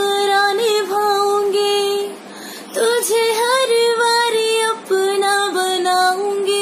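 A woman singing a Hindi song solo, holding long notes with melodic turns and a short breath break about two seconds in.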